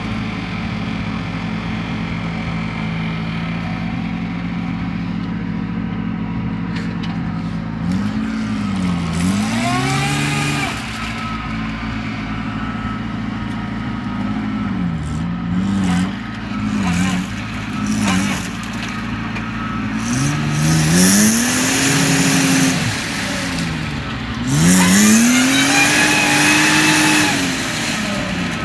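Suzuki Samurai's engine running steadily, then revved again and again in rising and falling surges as the 4x4 struggles through deep mud. The hardest revs come in the last third, with spinning tyres throwing mud and water.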